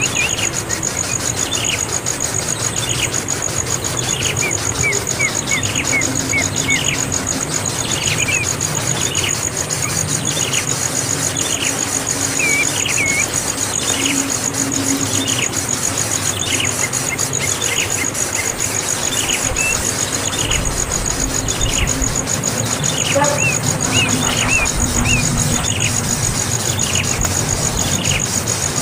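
A young bird chirping over and over with short, high, falling calls, roughly one a second.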